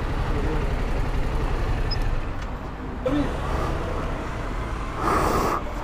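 Yamaha Tracer 700 motorcycle engine idling at a standstill, a steady low rumble under street noise, with a short hiss about five seconds in.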